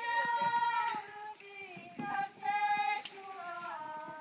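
A high voice singing unaccompanied, holding a string of long notes one after another.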